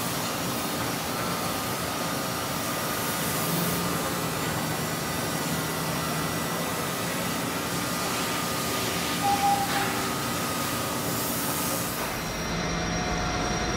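Meat-processing plant machinery running, a steady mechanical whir and hum with a few constant tones; the sound changes slightly about twelve seconds in.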